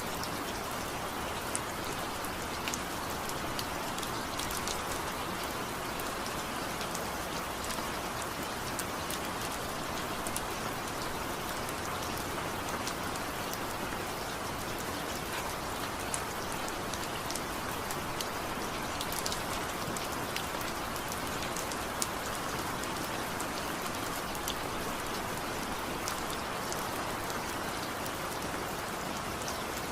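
Steady rain falling, an even hiss of rainfall with many small individual drops ticking on surfaces throughout, and no thunder.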